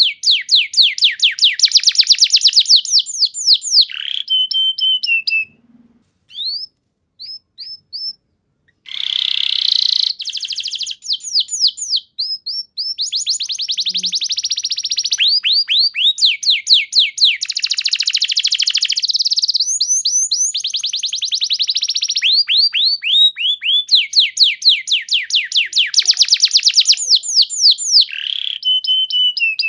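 Canary singing: fast trills of repeated down-slurred whistled notes in long runs, broken about five to nine seconds in by a short pause with a few single notes.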